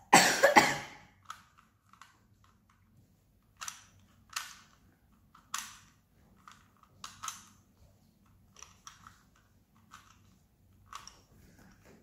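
A 3x3 Rubik's cube being turned in the hands: short bursts of plastic clicking and rattling as the layers are twisted, roughly one every second. The loudest is a harsh burst of sound in the first second.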